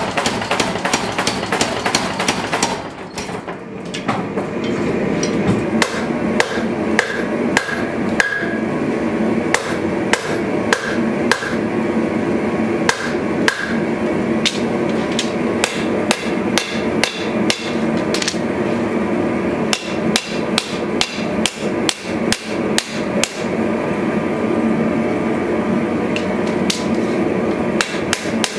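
A power hammer pounds a red-hot sword blade in fast, closely spaced blows for about the first three seconds. Then a hand hammer strikes the hot blade on an anvil in runs of blows, at times with a short metallic ring, over a steady background rush.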